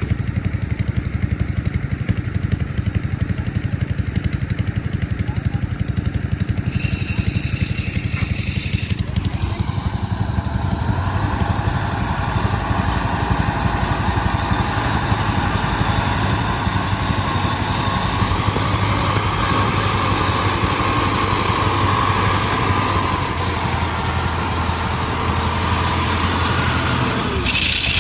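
Farm machine's engine running steadily, growing louder and busier about nine seconds in.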